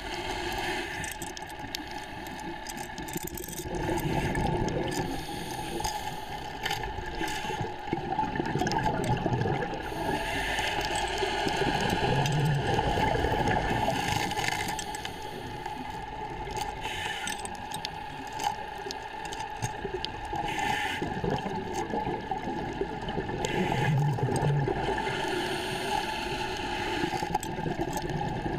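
Underwater sound of scuba regulator breathing: gurgling bursts of exhaled bubbles that swell and fade every several seconds, with a few faint clinks.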